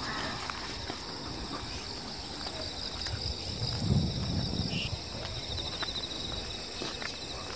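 A steady high chorus of insects, crickets among them, with a fine pulsing trill near the end. Faint footsteps on a paved road and a brief low rumble about halfway through.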